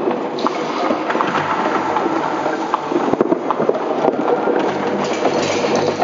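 Many irregular wooden knocks and clatters from pieces of wood being struck and handled on a concrete floor, echoing through a large empty hangar, over a low steady hum.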